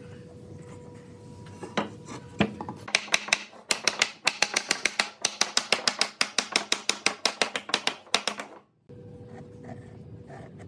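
Wooden mallet tapping quickly on a wooden board, about six light blows a second for several seconds, knocking a glued joint into place. Two single knocks come just before the run.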